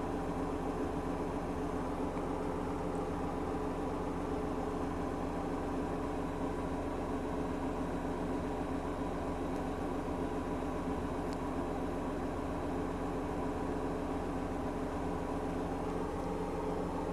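A household appliance running with a steady, even hum and no change in its rhythm.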